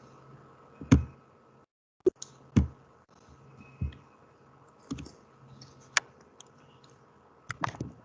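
Irregular sharp clicks and taps of a computer mouse at a desk, about ten of them, the loudest about a second in. A faint steady hum lies beneath.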